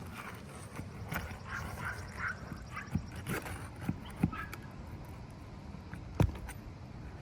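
Roofing tools knocking and scraping on roof shingles as a shingle is worked loose, with a handful of sharp irregular knocks, the loudest about six seconds in.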